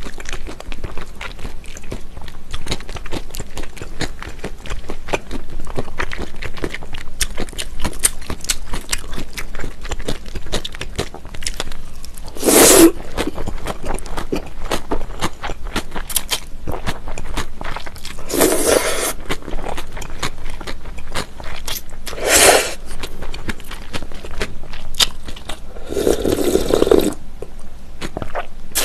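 Close-miked mouth sounds of eating mulhoe, a cold spicy raw-fish soup with somyeon noodles and chili peppers: steady wet chewing and crunching, broken by four loud slurps of noodles, the last about a second long near the end.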